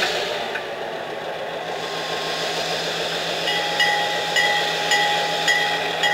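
Ex-Chessie EMD Geep diesel locomotive's engine running steadily. About halfway in, its bell starts ringing, about two strokes a second.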